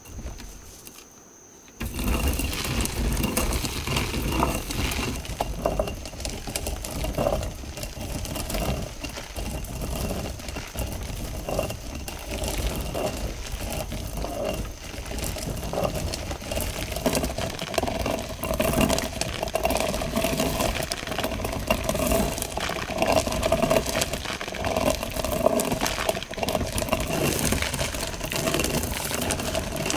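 Hand-turned stone quern grinding dried corn kernels: the upper millstone rotating on the lower one with a steady, gritty rumble, starting about two seconds in.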